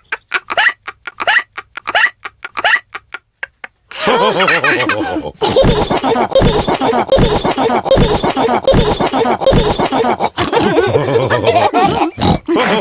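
Cartoon pig character hiccuping in a run of short, evenly spaced hiccups, then several cartoon voices laughing together from about four seconds in.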